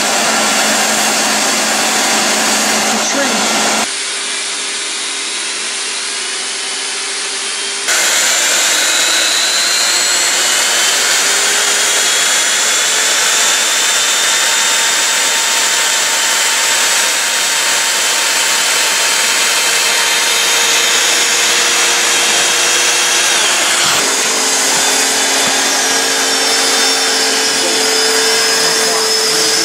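Hand-held hot-air tools for plastic welding running: a steady blower rush with a few faint held tones, changing abruptly about 4, 8 and 24 seconds in.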